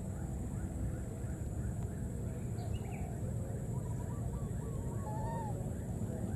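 Faint, short animal calls, a few thin wavering cries and chirps, over a steady low rumble of background noise.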